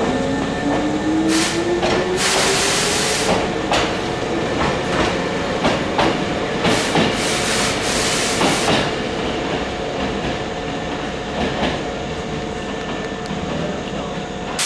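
Hankyu electric train accelerating: its motor whine rises in pitch over the first three seconds, with a burst of hiss about two seconds in. Between about four and nine seconds the wheels clack over rail joints in a run of knocks, and a steady rumble of the running train follows.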